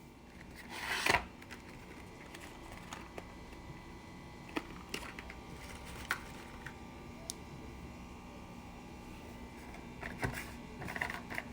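Items being handled and set down while a gift basket is filled: a loud rustle about a second in, then scattered light clicks and taps, and more rustling near the end.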